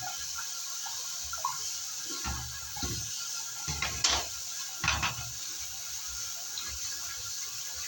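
Water running and splashing, with two brief louder splashes about four and five seconds in.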